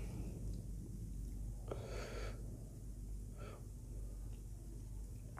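Close-miked breaths through the nose and mouth of a person eating: one clear breath about two seconds in and a shorter one about a second and a half later, over a low steady hum.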